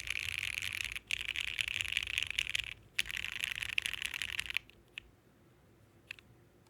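Fast typing on a Bakeneko mechanical keyboard with lubed, filmed Gateron Ink switches in an FR4 half-plate on a standard PCB. Quick runs of keystrokes with brief pauses stop a little past halfway, followed by a couple of single key presses.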